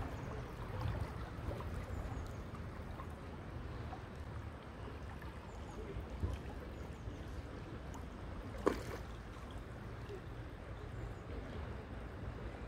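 River water rushing steadily, with one short knock about two-thirds of the way through.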